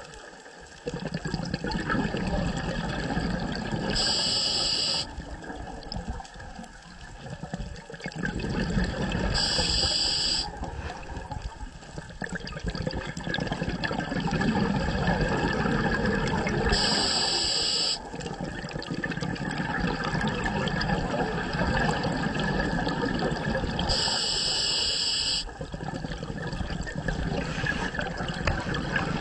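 Scuba diver breathing through a regulator underwater: a hiss of inhalation lasting about a second, four times at intervals of six to seven seconds, with the low bubbling rumble of exhaled air in between.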